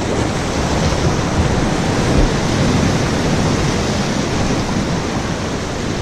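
Steady rushing wash of surf on the shore, with wind on the microphone.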